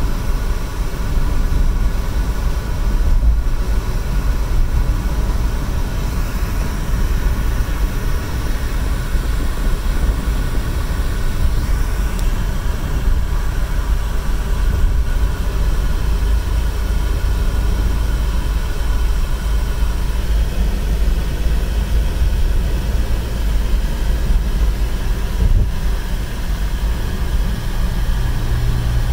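Steady low rumble of a car driving at highway speed, heard from inside the cabin: tyre and engine noise with no breaks or changes.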